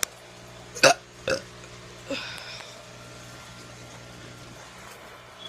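A teenage boy burping: two short, loud burps about a second in, then a brief softer sound.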